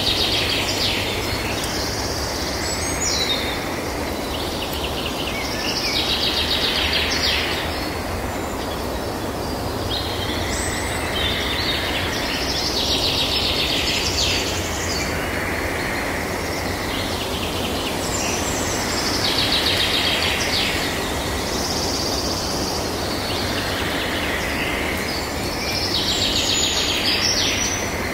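Outdoor ambience: a steady low rushing noise, with bursts of high, rapid bird chattering every few seconds.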